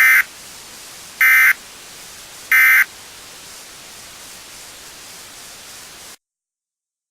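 Three short bursts of EAS SAME digital data tone, about a second and a quarter apart: the end-of-message (NNNN) code that closes an emergency alert. A steady hiss of static runs underneath and cuts off suddenly about six seconds in.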